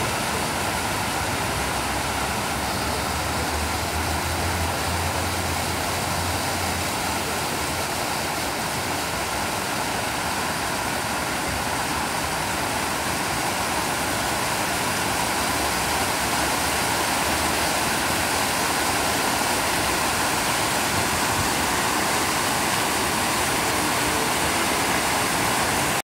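Illuminated plaza fountain's ring of vertical water jets splashing down into its basin: a steady rush of falling water.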